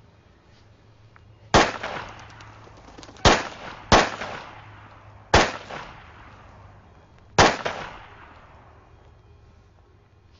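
Five gunshots in a film soundtrack, spaced irregularly over about six seconds, each sharp report echoing away for about a second.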